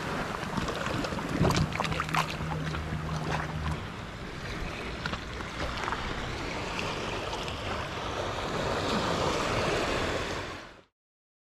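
Shallow seawater washing and lapping over reef rocks and against a concrete wall at low tide, with wind buffeting the microphone. A low steady hum is heard for about two seconds, starting about a second and a half in, and all sound cuts off suddenly near the end.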